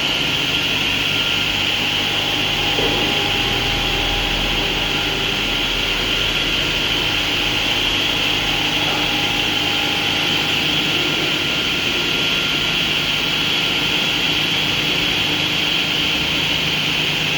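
Stone-cutting saw running steadily while its blade cuts through stone: a constant high whine over an even grinding noise.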